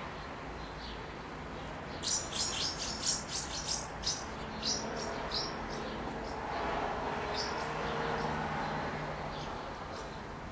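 House martins chirping at the nest: a quick run of about a dozen sharp, high chirps starting some two seconds in, then a few scattered single chirps, over steady background noise.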